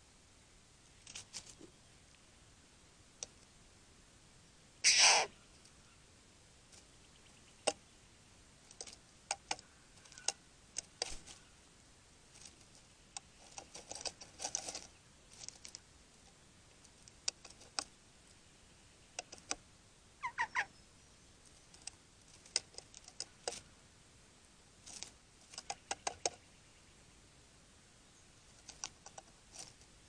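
Male satin bowerbird at its bower giving a string of sharp clicks and short harsh calls. The loudest is a harsh call about five seconds in, and a short pitched call comes about twenty seconds in.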